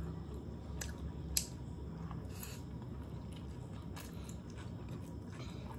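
Close-up eating sounds of people chewing and slurping stir-fried chowmein noodles, wet mouth noises with a few sharp clicks scattered through, the sharpest about a second and a half in.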